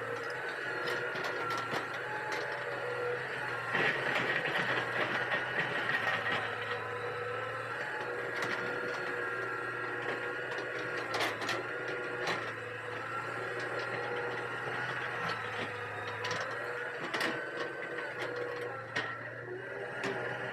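Hitachi EX200 hydraulic excavator working: a steady diesel engine hum under a hydraulic whine that shifts in pitch, louder for a couple of seconds about four seconds in, with a few sharp clicks and clanks.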